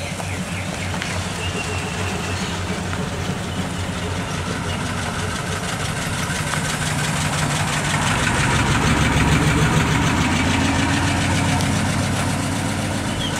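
Early-1950s Ford sedan engine running at low speed as the car drives slowly past, growing louder toward the middle and then easing off a little.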